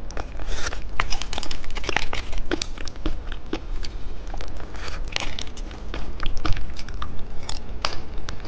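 Lollipop dipped in popping candy being eaten close to the microphone: a steady stream of small, irregular crackles and crunches.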